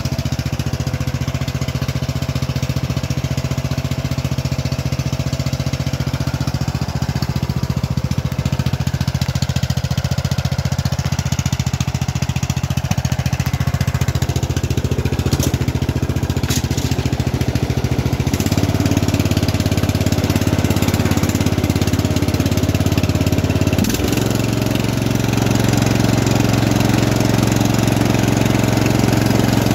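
A lawn tractor's 17 hp Briggs & Stratton engine running steadily. Its note changes about two-thirds of the way in and again shortly after, a little louder each time.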